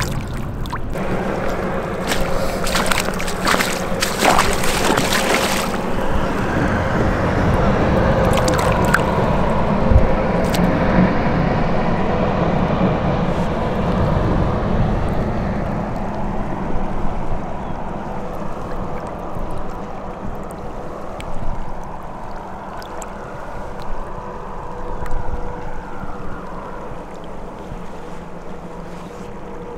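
A brown trout splashing in a landing net held in shallow river water, with a burst of sharp splashes a couple of seconds in, then water sloshing and gurgling around the net, slowly growing quieter.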